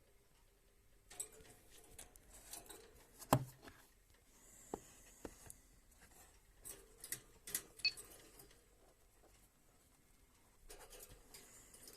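Faint, irregular clicks, ticks and rustles picked up by a 70mai Pro dash cam's microphone: the extraneous noise that turns up in its recordings. The loudest click comes a little over three seconds in.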